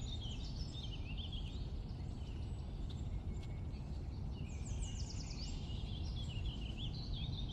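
Songbirds singing in quick, twittering phrases: one spell at the start and another from about halfway to the end, over a steady low rumble of background noise.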